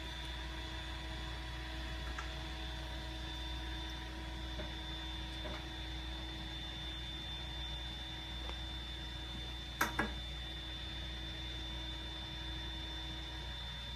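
Cube 3 3D printer running its purge cycle, its gears turning to push filament through the print jet: a steady low hum with several faint steady tones, a brief click about ten seconds in, and one of the tones cutting out near the end.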